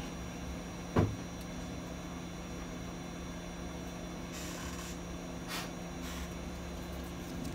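A steady low hum, with one dull thump about a second in and a few brief soft hisses later.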